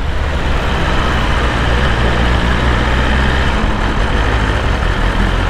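BMW S1000RR's inline-four engine running at low road speed under steady wind and road noise; the low engine note changes about three and a half seconds in as the bike slows.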